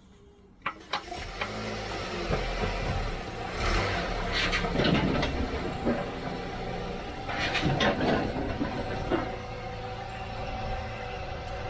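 Car engine running, setting in about a second in, with several short knocks and louder clattery moments over it.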